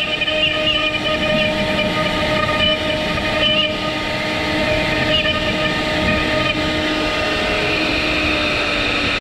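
Avid CNC router spindle running with a steady whine while its V-bit carves into a hardwood board, with small wavers as the bit cuts.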